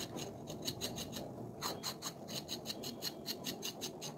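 Kitchen knife slicing through a green vegetable held in the hand: quick, even cutting strokes about five a second, in two runs with a pause between them.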